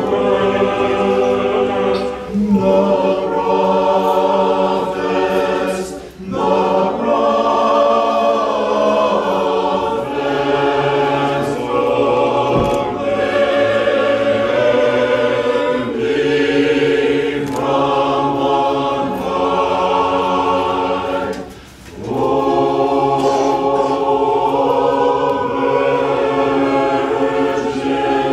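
Orthodox church choir singing liturgical chant a cappella, several voices in harmony. The phrases are long and held, with two brief breaks between them.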